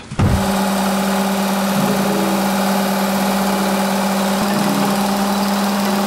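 Work Sharp electric belt knife sharpener running, a steady motor hum over a hiss, with a knife blade held in its guide against the belt. The sound starts abruptly and stops near the end.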